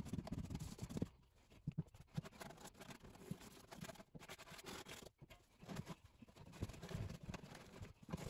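Faint, irregular scratching and rustling of a cloth rag rubbing wet brown acrylic paint over a wooden chest, with small knocks and clicks.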